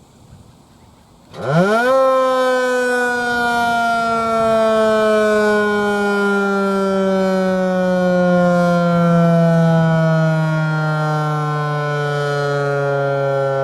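Federal Signal 508-128 dual-tone tornado siren on a quiet test. It spins up sharply for about half a second, starting just over a second in, then winds down with its pitch falling slowly and steadily while it stays loud.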